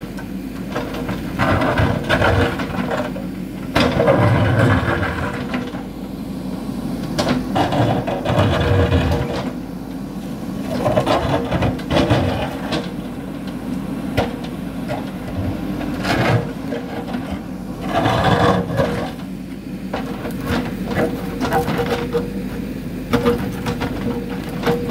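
JCB 3DX backhoe loader's diesel engine running steadily under load while its backhoe bucket digs and breaks rock. Repeated bouts of grinding, scraping rock and clattering stones every few seconds, with sharp knocks at times.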